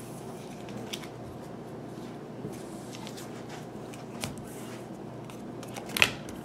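Baseball cards being handled and shuffled through, with a few soft flicks and a sharper one near the end over a steady low background hiss.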